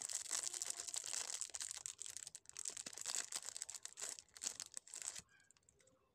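Clear cellophane candy bag crinkling as it is handled and pulled off a stick of sugared marshmallow candies. It stops abruptly about five seconds in.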